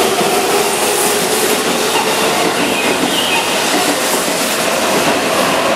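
Keihan 9000 series VVVF-inverter electric train moving along the platform: a loud, steady rumble and clatter of steel wheels on rail, with faint high tones over it.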